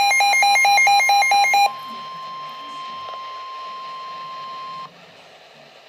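Midland WR-120 weather radio sounding a tornado-warning alert: a loud, rapidly pulsing beep that cuts off about a second and a half in. It gives way to the steady single-pitch warning alarm tone of the NOAA Weather Radio broadcast, about 1 kHz, which lasts about three seconds and stops suddenly, leaving faint radio hiss.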